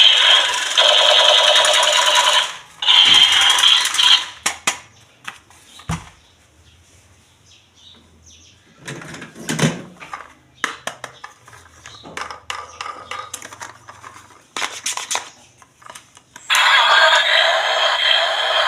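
Toys and packaging being handled: a few seconds of loud, dense rustling noise, then scattered sharp clicks and taps of hard plastic, then loud dense noise again near the end.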